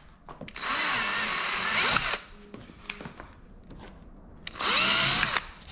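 Cordless drill running in two bursts, the first about a second and a half long and the second just under a second, as a slightly larger bit enlarges pilot holes through the masking tape into the C7 Corvette's rear body panel.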